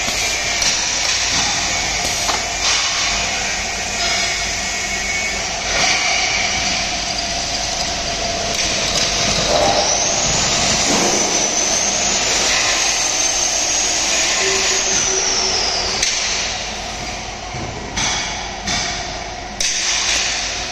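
Automatic pipe drilling machine running: electric drill-head motors and drills working a steel scaffolding pipe, a steady mechanical din with a high whine that rises and wavers through the middle. Several sharp clunks come near the end as the pipe is handled.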